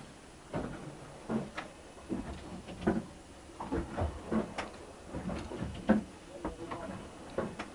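Irregular knocks and thumps, a dozen or more spaced unevenly, over a low background.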